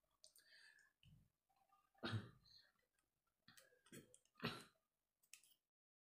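Faint clicks and knocks of a 2.5-inch laptop hard drive being handled in its mounting bracket, a scattering of short taps at uneven intervals that stop abruptly near the end.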